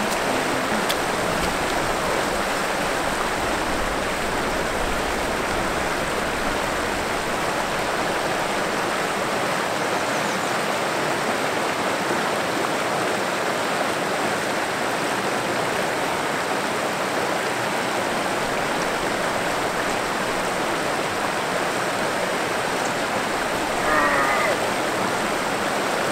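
Steady rush of stream water running into a pool, with a brief louder sound near the end.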